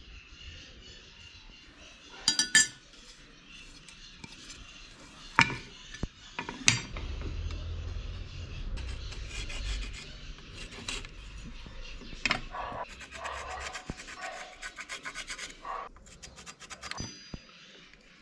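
Hand work on a knife in a workshop: a few sharp metallic clinks among stretches of rubbing and scraping.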